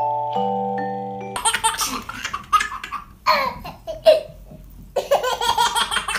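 Gentle mallet-percussion music for about the first second and a half, then a baby laughing in repeated bursts.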